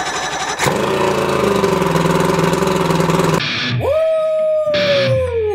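Two-stroke Johnson outboard motor running loudly and steadily, cutting off abruptly a little over three seconds in. It is followed by one drawn-out tone that rises, holds and slides slowly down.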